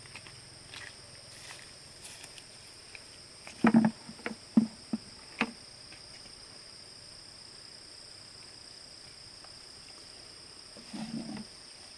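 Insects chirring steadily in a high, even drone, with a few short knocks about four to five and a half seconds in and a softer bump near the end.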